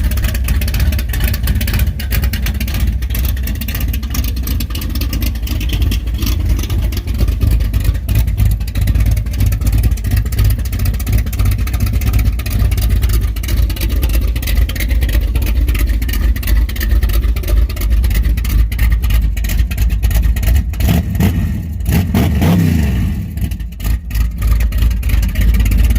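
454 big-block V8 with a Thumpr cam running through straight-through circle track mufflers, loud and nearly as open as open headers, idling with an uneven, choppy beat. About four-fifths of the way through it is revved briefly and drops back to idle.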